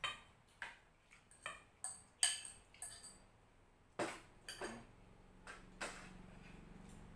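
Spoons clinking and scraping against ceramic bowls and plates during a meal: a dozen or so light, separate taps and clinks. A faint low hum comes in about two-thirds of the way through.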